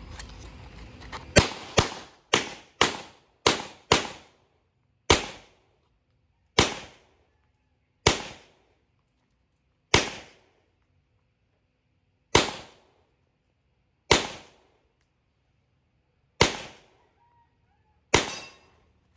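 Pistol shots: a fast string of six shots in about two and a half seconds, then eight more single shots spaced every one and a half to two seconds, each with a short echo.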